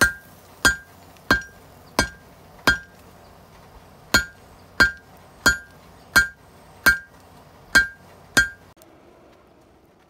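Hand hammer striking a glowing-hot Damascus steel billet on an anvil, drawing it out, with a bright ring on every blow. There are twelve evenly paced blows: five, a short pause, then seven more, ending a little before the nine-second mark.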